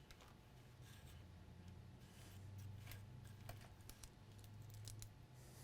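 Near silence: faint low hum of room tone with a few light, scattered clicks and taps.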